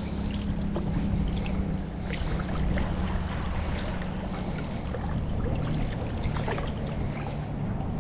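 A boat motor running steadily with a low, even hum, under water noise with many small scattered ticks and splashes.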